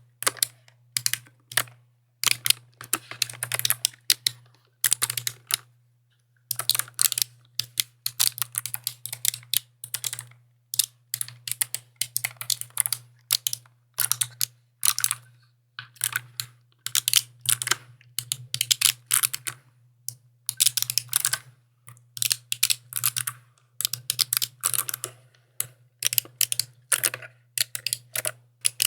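Mechanical keyboard being typed on: rapid clacking keystrokes in bursts of a second or two, separated by brief pauses.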